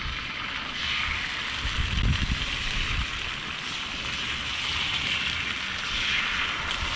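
Eggs sizzling as they are poured one at a time onto a hot flat-top griddle greased with bacon fat. The steady frying hiss swells as each egg goes down.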